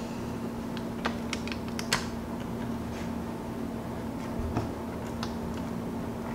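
Plastic retaining clips of an HP 745 G3 laptop's bottom cover clicking as the cover is pried loose by hand: a scatter of small sharp clicks, a quick run of them about a second in and a few more past the middle.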